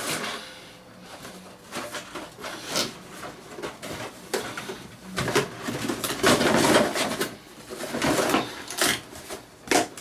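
Cardboard packaging being handled: an inner cardboard box sliding and scraping out of its outer retail box, with scattered knocks and rustles and a longer scrape about two-thirds of the way through.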